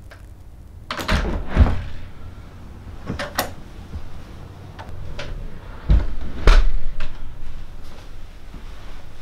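A door being opened: knob and latch clicks about a second in, then a louder knock a few seconds later as it is shut, with a few smaller knocks between.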